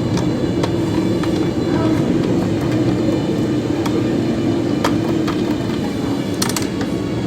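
Steady low background rumble, with scattered light clicks and taps from a screwdriver and screws as the screws holding an Epson L120 printer's logic board are taken out; a quick cluster of clicks near the end.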